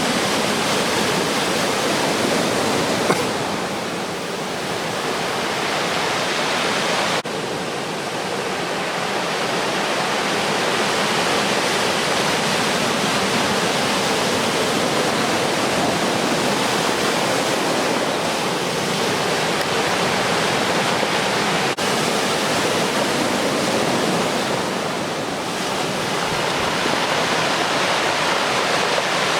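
Ocean surf breaking on a beach, a continuous rush of noise that eases briefly a few seconds in and again near the end.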